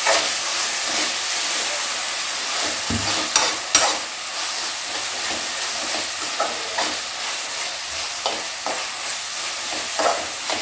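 Chopped tomatoes and green chillies sizzling in an aluminium kadai while a metal slotted spoon stirs and scrapes through them, with two sharp clinks of the spoon on the pan about three and a half seconds in.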